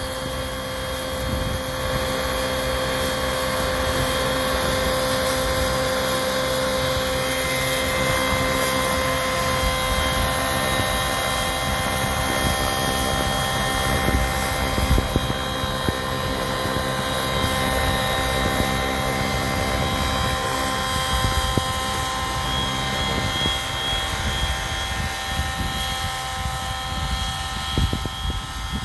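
Radio-controlled scale model Sikorsky S-76 helicopter running, with a steady whine of several fixed tones over the rush of its spinning rotors, as it lifts off from the grass and hovers low.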